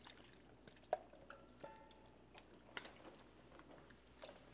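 Near silence: room tone with a few faint clicks and, about a second and a half in, a brief faint ringing tone.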